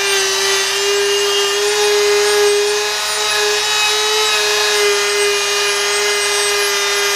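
Harbor Freight rotary tool on speed 4 with a small wire brush bit, running steadily against 2000-grit-sanded iron to scratch its surface. A steady motor whine sits over the scratchy hiss of the wire bristles on the metal.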